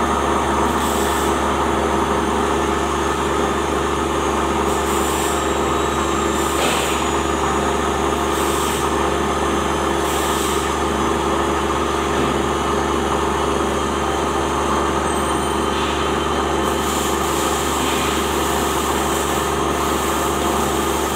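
Plastic film agglomerator running steadily: its motor and rotating blade drum give a constant, even machine hum with fixed tones. Short bursts of hiss come now and then.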